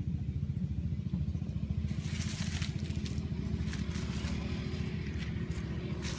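Wind rumbling on the microphone throughout, with dry leaves and twigs crunching underfoot a few times, the longest crunch about two seconds in.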